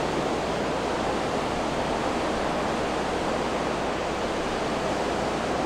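Ocean surf rushing steadily on the beach: an even wash of noise with no separate wave breaks standing out.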